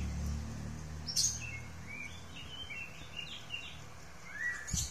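Small bird chirping in the background: a run of short high notes, then one rising chirp near the end. Under it, a low rumble fades out in the first second and a half, and there are a couple of soft knocks.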